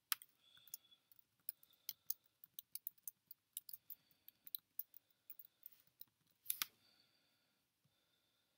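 Faint typing on a MacBook keyboard: a quick, irregular run of key clicks for about six seconds, ending with a couple of louder clicks.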